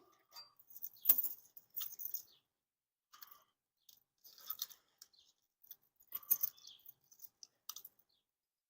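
Light, scattered clicks and rattles of metal pipe strapping being handled and bent into place, with a sharper click about a second in and another cluster around six seconds in.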